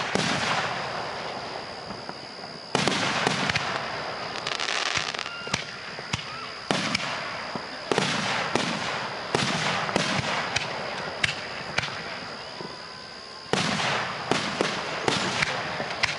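Fireworks going off: about six big bursts, each followed by a run of crackling and popping that trails away, with a steady high-pitched whine underneath.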